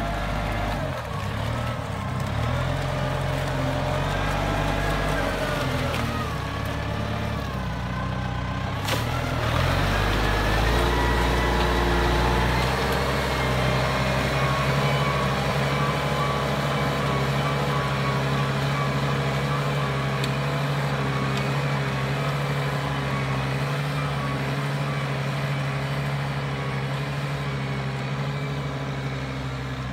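Kubota M7040 tractor's four-cylinder diesel engine running under load while pulling a disc plough through wet ground. Its pitch wavers for the first several seconds, then holds steady, and it fades a little near the end as the tractor moves away.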